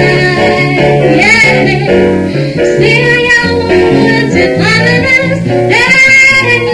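A woman singing a soul-jazz ballad through a microphone, accompanied by grand piano and plucked double bass. Her phrases bend in pitch, and she holds a long note near the end.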